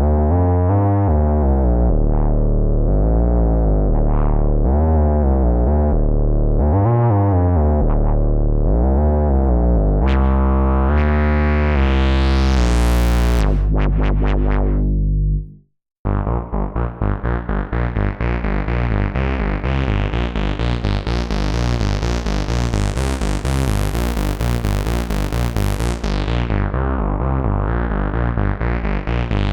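Vermona Mono Lancet '15 monophonic analog synthesizer played dry. First comes a deep bass line whose filter opens and closes on each phrase, sweeping up to a bright buzz about ten to thirteen seconds in before it cuts off. After a brief gap about halfway through, a fast sequence of short repeated notes begins; its filter slowly opens to a bright, raw buzz, closes again, then reopens near the end.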